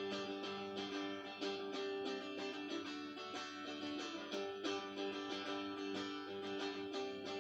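Acoustic guitar strumming in a steady rhythm: the instrumental part of a recorded song, with no singing.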